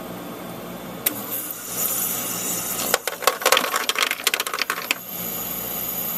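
EdgeStar portable ice maker running its harvest cycle: a click about a second in, then about two seconds of rapid clicking and clattering as the mechanism pushes a batch of freshly frozen small ice cubes off into the bin, settling into the machine's steady hum.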